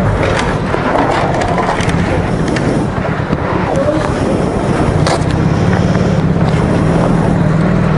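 A motorcycle engine idling steadily, with scattered clicks and knocks as the bike is handled.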